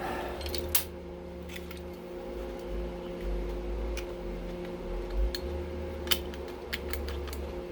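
Scattered light clicks and taps of a residential circuit breaker being taken apart by hand, parts and tools knocking as it is handled, over a steady low hum.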